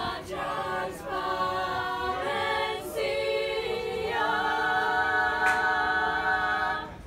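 A small group of girls singing a cappella in harmony, holding long chords that change a few times. The singing cuts off suddenly near the end.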